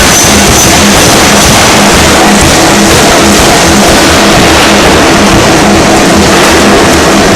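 Pneumatic forging hammer running, very loud and continuous, with a fast, even rhythm of blows over the din of the machine.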